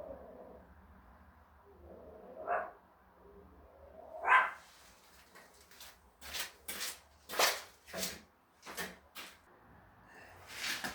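A dog barking twice, a couple of seconds apart, followed by a quick, irregular run of about seven short, sharp sounds.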